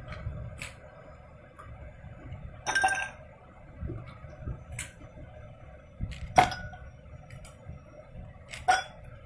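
Ice cubes dropped one at a time into glass tumblers, each clinking against the glass with a brief ring. There are three louder clinks among several fainter taps.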